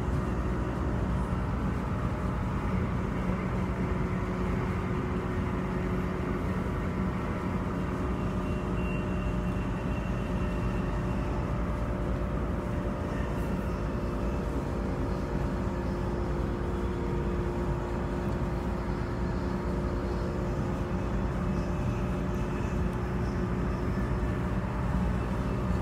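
Interior running noise of a Transperth B-series electric multiple unit (Bombardier/Downer Rail) under way: a steady rumble of wheels on rail, with a few steady tones held over it.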